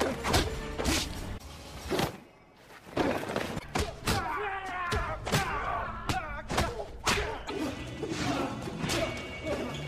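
Film fight-scene sound effects: a quick series of punch and kick impacts and swishes over a music score, with a brief drop to near quiet a little over two seconds in.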